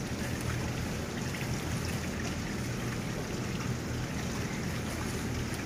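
Steady background noise with a low hum and no distinct events.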